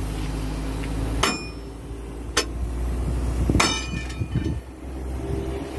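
Hammer blows on steel at a heavy machine's wheel hub: three sharp strikes about a second apart, the last one ringing. A steady low hum runs underneath.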